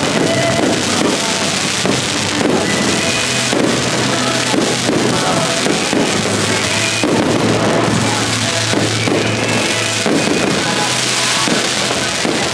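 Aerial fireworks going off in a rapid run of bangs, over music that plays throughout.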